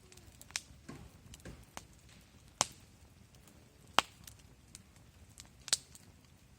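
Wood fire crackling, with four sharp pops spread among fainter snaps.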